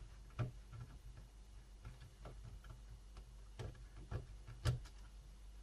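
About six faint, separate clicks and taps, the loudest near the end, from hands unplugging the speaker cable connector on a laptop motherboard. A steady low hum sits underneath.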